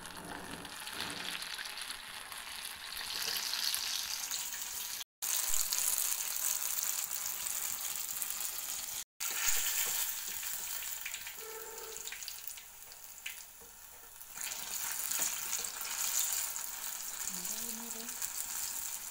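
Batter-coated ripe plantain slices (pazhampori) deep-frying in hot coconut oil, a steady sizzle. The sound breaks off for an instant twice, about five and nine seconds in.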